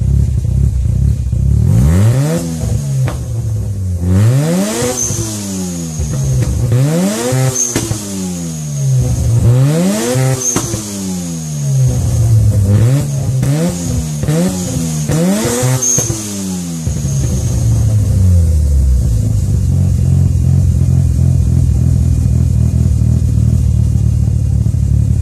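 Mazda RX-7's twin-rotor rotary engine revved repeatedly through a loud aftermarket exhaust, about eight quick blips, each rising and falling in pitch, then settling back to a steady idle for the last several seconds.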